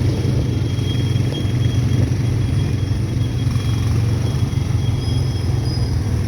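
ATV engine running steadily with a continuous low rumble.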